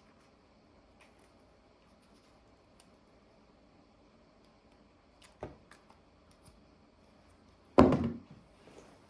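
Quiet handling of small objects with a few light clicks, a knock about five seconds in, and a louder thunk near the end, as of an item being set down on a hard surface.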